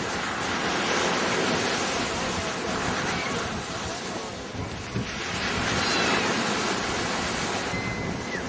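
Wind buffeting the microphone over the wash of surf on a beach, swelling and easing.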